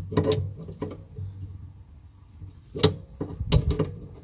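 Metal spanners clicking and knocking against a brass compression fitting and gas regulator while the copper gas line is being tightened. There are a few clicks at the start, one sharp knock about three seconds in, and a quick cluster of knocks near the end.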